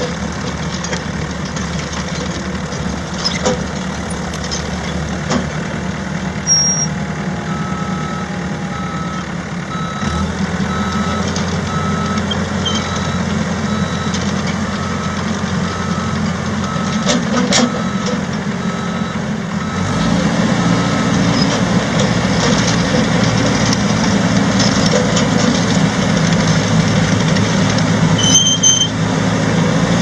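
ASV RC100 tracked skid steer's Perkins diesel engine running, its backup alarm beeping about one and a half times a second while the machine reverses for a stretch in the middle. The engine changes pitch about a third of the way in, then runs louder and higher after the beeping stops.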